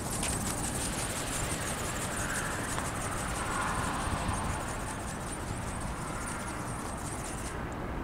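Strong wind buffeting the microphone: a steady, even noise heaviest in the low end.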